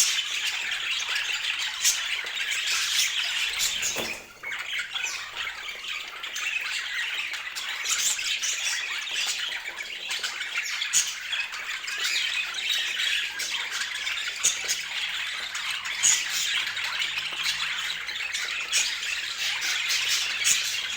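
Budgerigars chattering and squawking: a dense, continuous din of short chirps and squawks, with a brief lull about four seconds in.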